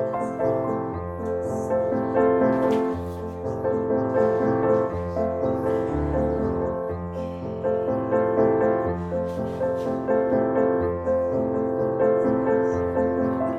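Background piano music with a slow, steady bass line.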